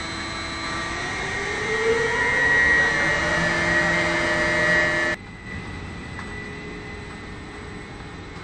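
Hoist machinery of a ship-to-shore tandem container crane running: electric hoist motors and gearboxes whining, with several steady tones and one rising in pitch as the drive speeds up and grows louder. It cuts off abruptly about five seconds in to a quieter steady hum.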